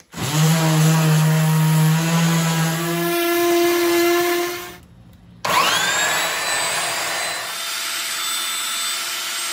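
Electric power sander with 80-grit paper running on a hardwood cutting board, flattening the uneven glue-up edge. It runs, stops briefly near the middle, then spins up again with a rising whine and keeps running.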